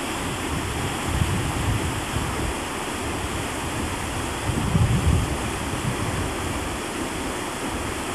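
Fast-flowing mountain creek rushing over rocks: a steady rush of whitewater, with a few low rumbles now and then.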